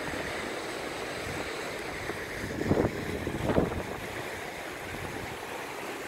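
Steady rush of ocean surf washing over a rocky shore, with wind on the microphone; the sound swells briefly twice near the middle.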